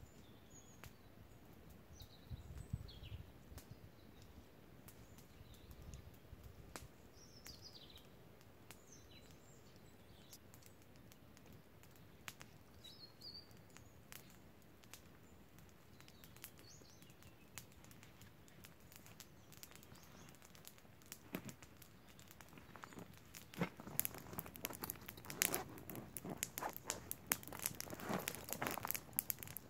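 Faint songbird chirps now and then through the first half, then near the end a run of crinkling and crumpling as something is handled, the loudest sound here.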